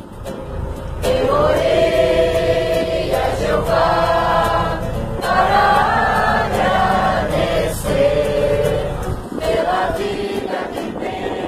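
A mixed group of men and women singing a hymn together, with an acoustic guitar strumming along. A low steady rumble runs underneath and drops away about nine seconds in.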